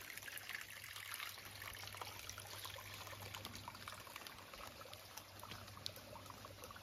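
Small woodland stream trickling and splashing over rocks, a steady faint patter of water.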